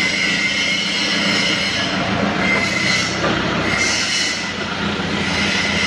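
Mitsubishi 2-ton forklift running with its hydraulics working at maximum lift, the mast at full height: a steady engine drone with a high whine that comes and goes.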